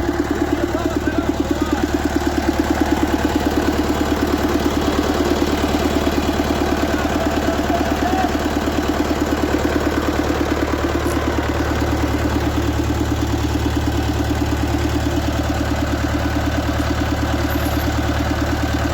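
Vehicle engine running steadily with a fast, even pulse, a little louder for the first few seconds.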